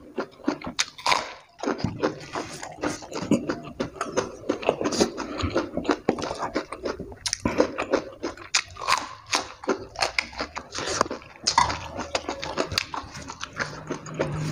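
Close-miked eating: chewing and crunching of raw vegetables and crispy fried egg with chili sambal, with wet mouth clicks and lip smacks in an irregular run of short crisp sounds.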